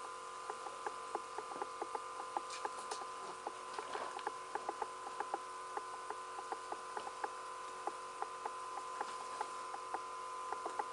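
Broth simmering in a wide paella pan: many small, irregular pops and crackles a few times a second over a steady hum.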